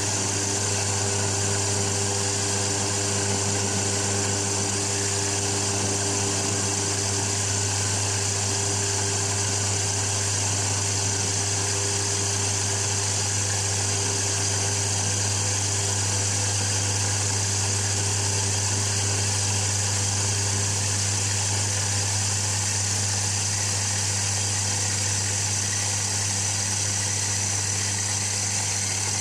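Electric burr coffee grinder running steadily, grinding coffee beans at a fine setting for espresso.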